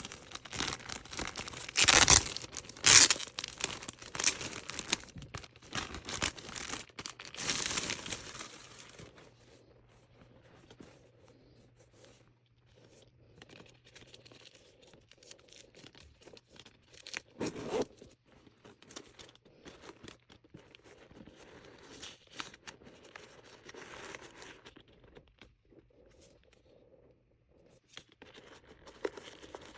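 Packaging being torn open and crinkled by hand, loud for the first several seconds with a couple of sharp rips, then quieter intermittent rustling and handling.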